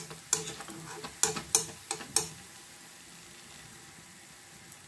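Sfenj dough fritter sizzling in hot oil in a frying pan. In the first two seconds a spoon and fork knock against the pan about five times as oil is spooned over the top of the dough, then only the steady sizzle remains.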